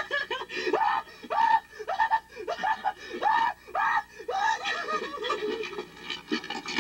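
A man crying out in repeated short, high yelps, about two a second, that rise and fall in pitch, in mock pain as a pretend needle is jabbed into his arm.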